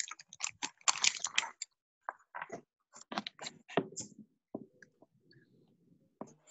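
Close handling noise: irregular crackly clicks and rustles, dense over the first few seconds, then thinning to a faint rustle with a few scattered clicks.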